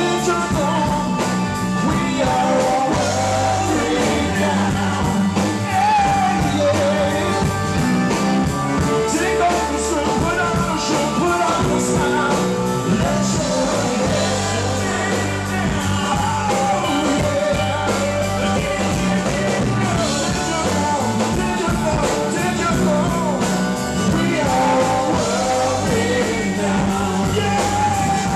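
Live rock band playing loud and steady, with electric guitars and bass under a sung vocal line.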